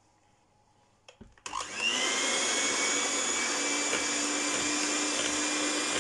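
A click, then an electric hand mixer switches on about a second and a half in, its motor whine rising as it spins up and then running steadily, whisking condensed milk.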